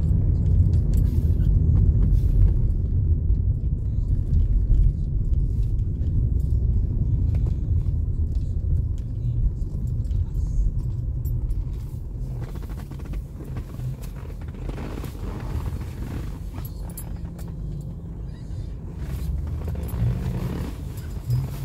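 Steady low rumble of a car driving, heard from inside the cabin: engine and road noise, getting quieter from about halfway through.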